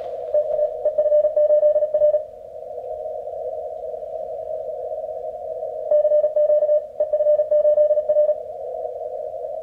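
Morse code (CW) tones from an Icom IC-7300 transceiver's speaker, keyed on and off in two spells of about two seconds, one near the start and one about six seconds in. Between them is the steady hiss of the radio's narrow CW filter passband.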